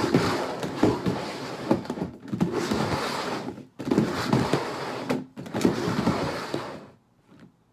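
Upturned plastic bowls being slid and shuffled around on a tabletop: a continuous scraping rub with frequent knocks and two short pauses, stopping about seven seconds in.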